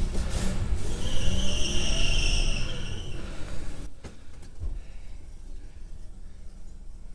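1964 Chevy Nova engine running, with a high-pitched belt squeal from about a second in lasting some two seconds; at about four seconds the engine noise drops and it settles into a quieter idle.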